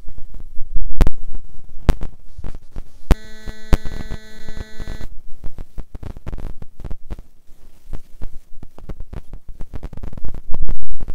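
Rumbling and knocking of a phone microphone being jostled and rubbed, with several sharp thumps, while the horse scrambles up a steep muddy riverbank. A steady pitched tone sounds for about two seconds, starting about three seconds in.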